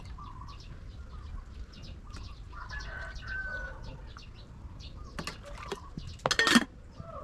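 Small birds chirping in quick, repeated high notes, with a lower drawn-out call about three seconds in. About six seconds in comes a short loud rustling burst, the loudest sound.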